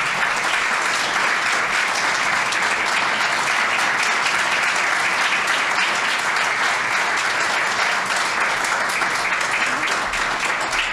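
Audience applauding, a steady wash of many hands clapping.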